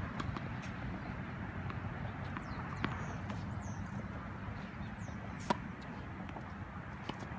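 Tennis ball struck by rackets during a rally: two sharp hits about two and a half seconds apart, the second louder, over a steady low background rumble. Birds chirp faintly between them.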